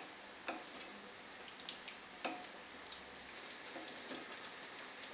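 Sweet and sour sauce sizzling and bubbling in a pan as it is stirred, with a few soft clicks of the stirring utensil against the pan. The cornflour sauce is just starting to thicken as it comes up to heat.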